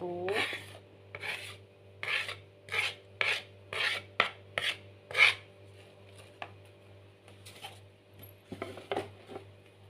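A spoon scraping chopped spring onion and celery across a wooden cutting board into a bowl: about ten quick rasping scrapes over the first five seconds, then a few fainter ones. A steady low hum runs underneath.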